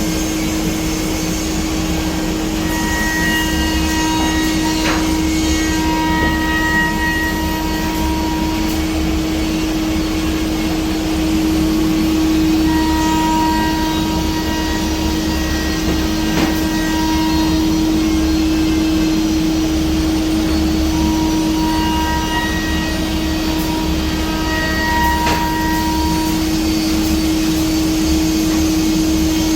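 Biesse Rover A five-axis CNC router running as it machines wood: a steady hum over constant noise, with higher whining tones that come and go every few seconds as the tool cuts.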